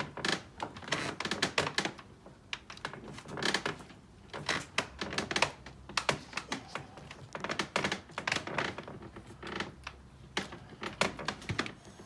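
Irregular clusters of sharp clicks, taps and knocks as hard parts are handled and pushed into place: an LG dishwasher's drain pump and motor assembly being worked back into the machine's base.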